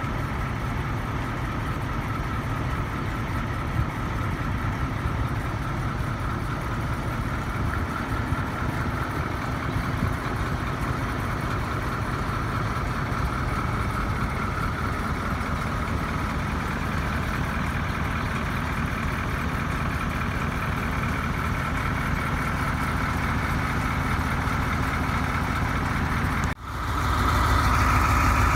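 Diesel engine of a Ford C-series fire truck idling steadily, with a low, even rumble. Near the end it breaks off for an instant and comes back louder.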